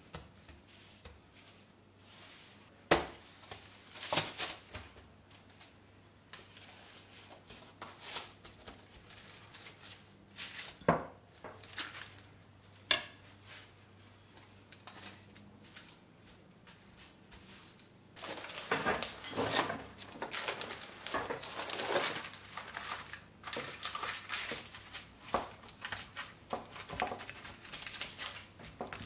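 Dough being worked by hand: scattered sharp knocks of a wooden rolling pin against a wooden board as the dough is rolled out on baking paper, then, about two-thirds of the way through, continuous rustling and crinkling of baking paper as the dough is laid into a metal baking tray and pressed to its edges.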